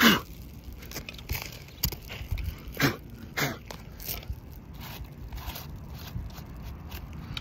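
Irregular gritty crunches and scrapes against the granule-coated surface of asphalt roof shingles. The loudest comes at the very start, then a handful of sharper ones over the next four seconds and fainter scuffs after.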